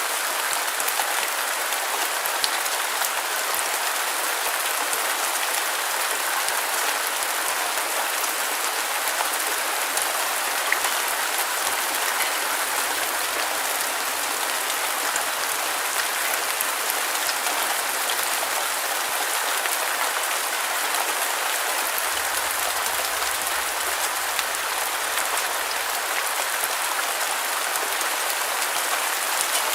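Steady rain falling on a surface, a continuous hiss with fine scattered drop ticks.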